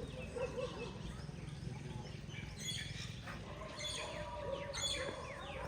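Several small birds chirping, many quick falling chirps that thicken about halfway through, over a steady low hum.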